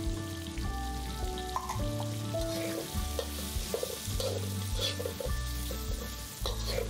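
Prawns and diced chicken sizzling in chilli paste in a steel wok, with a metal wok spatula scraping and stirring them several times, over background music.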